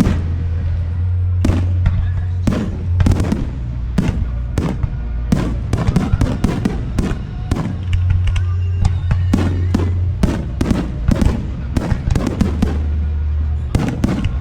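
Fireworks show in full barrage: shells bursting in quick succession, several sharp bangs a second with crackle and echoing tails, over music with a steady low bass that comes and goes.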